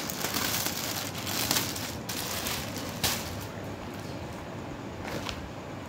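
Clear plastic packaging crinkling and rustling as hands pull an embroidered garment out of its bag, dense and busy for about three seconds, then quieter.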